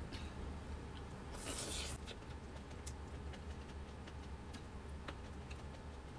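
Small clicks and soft rustles of hands handling food and its plastic and styrofoam packaging, with one brief louder rustle about a second and a half in, over a steady low hum.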